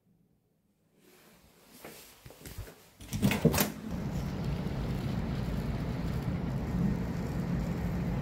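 Street ambience with steady traffic noise, starting suddenly about three seconds in after a few faint knocks and rustles, with a short burst of louder knocks just as it begins.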